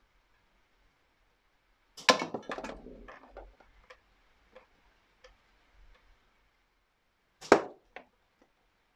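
Slingshot shots striking a tin can hung on a chain in a cardboard catch box, twice: a sharp clank about two seconds in, followed by a second and a half of rattling and small knocks as the can swings, then another loud clank near the end with one small knock after it.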